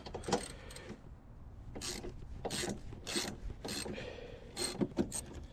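Hand socket ratchet loosening a bolt, its pawl rasping in about five short strokes.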